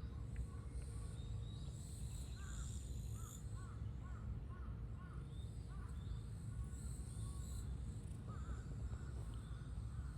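Outdoor ambience with a steady low rumble of wind on the microphone and many short, repeated bird calls, clustered through the middle of the stretch, with fainter high chirping above them.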